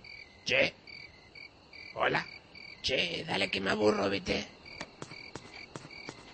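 Crickets chirping in short, evenly repeated high trills. A few drawn-out voice-like sounds cut across them, the longest and loudest about three seconds in. From a little past the middle, a sharp ticking of about three beats a second joins in.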